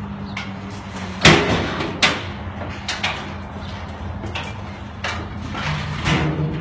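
A large cardboard box being pushed off a metal trolley into the back of a van: a series of knocks and scrapes, the loudest thud about a second in, over a steady low hum.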